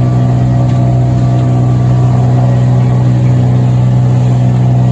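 Boat engine running at a steady speed, a constant loud drone with no change in pitch.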